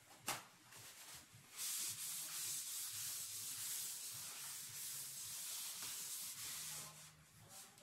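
Paper towel rubbed back and forth across a wet exam-table top: a steady scrubbing hiss that starts a little over a second in and stops about a second before the end, after a short knock near the start.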